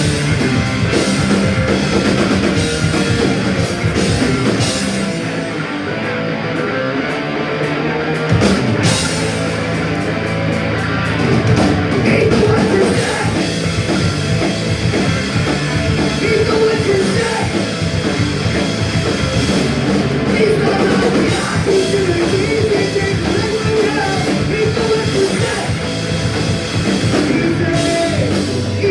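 Punk rock band playing live, with electric guitars and a drum kit going throughout.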